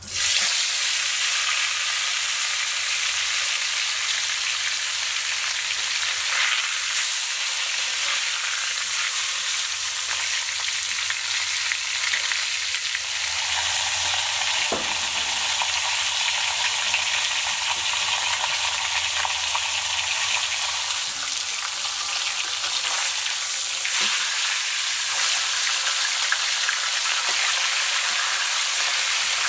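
A whole seasoned fish frying in hot oil in a wok, with a steady loud sizzle that starts suddenly as the fish goes into the oil.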